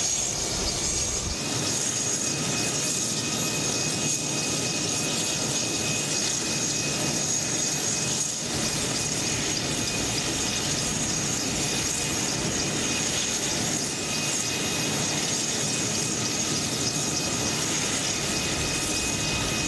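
Sikorsky S-97 Raider compound helicopter running on the ground with its coaxial rotors and pusher propeller turning: a loud, steady turbine whine with several high, unchanging tones over a dense rush of rotor and propeller noise.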